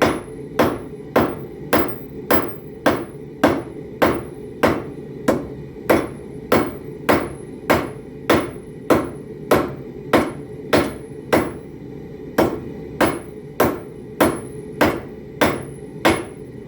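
Hand hammer forging hot 1/2-inch rebar on an anvil, in a steady rhythm of sharp ringing blows, about one every 0.6 seconds, with some 27 strikes in a row. A steady rush from the forge runs underneath.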